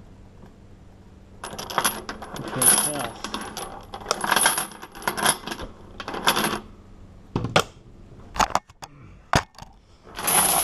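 Hardened steel padlock and metal hardware being handled, clinking and rattling metal on metal in several bursts of jangling with a bright ring, plus a few sharp single clicks about three quarters of the way in.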